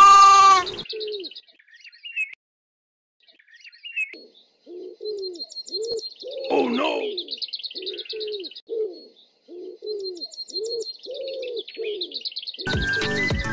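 A goat's bleat trails off in the first second, then pigeons coo in a long series of short, low, falling calls about two a second while small birds chirp in high trills above them. Music comes in near the end.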